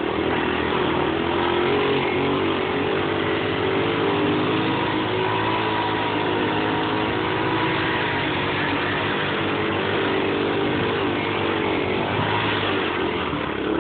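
Small 50cc engine running hard at high revs under way, its steady buzzing note wavering a little with the throttle and dipping briefly near the end.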